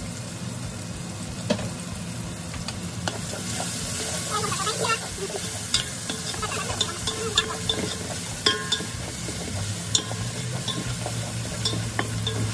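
Onions, tomatoes, green chillies and ginger garlic paste sizzling in hot oil in a steel pot while a wooden spatula stirs them, with sharp knocks of the spatula against the pot every second or two.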